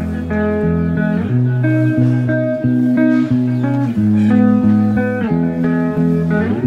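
Background music: a guitar instrumental over a moving bass line.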